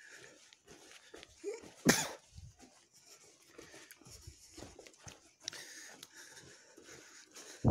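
Footsteps crunching in snow, with handling noise from a handheld phone: irregular scuffs, plus a loud bump about two seconds in and another at the end.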